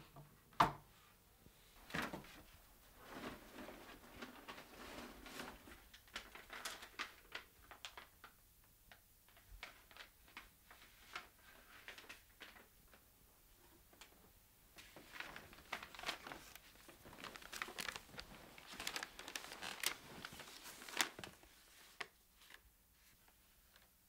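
A cardboard box set down on a table with a knock, then paper envelopes and plastic wrapping rustling and crinkling as they are handled, with scattered light knocks.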